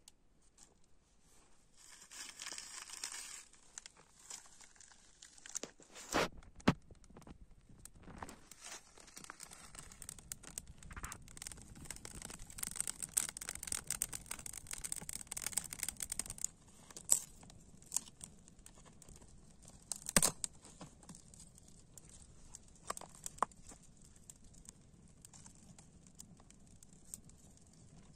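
Small campfire of dry twigs and grass being lit and fed: rustling and crackling of dry twigs, with several sharp snaps of sticks, the loudest about six and twenty seconds in.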